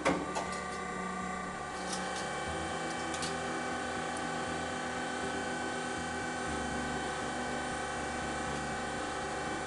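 SEM Model 0101 Sledgehammer hard drive crusher running through its crushing cycle: a few knocks at the start, then a steady motor hum with a constant whine, its low drone shifting slightly twice as the punch works on the drive.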